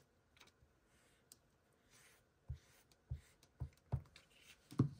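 Handling of journaling materials at a desk: about five soft, dull taps, starting about halfway in, with the last one the loudest.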